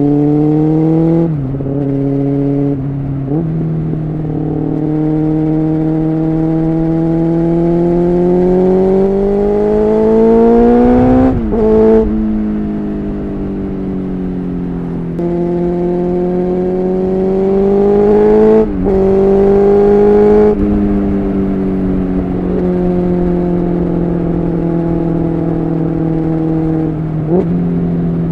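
Honda CBR600F3's inline-four engine under way. Its pitch climbs slowly under throttle and drops sharply at several gear changes, with stretches where it falls as the throttle eases.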